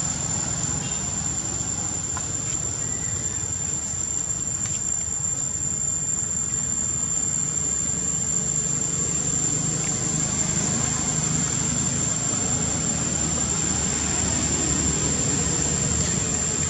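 Insects droning outdoors in one steady high-pitched whine, over a low steady rumble.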